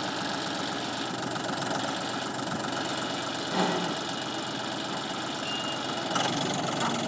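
John Deere 5310 tractor's diesel engine running steadily, powering a backhoe loader attachment.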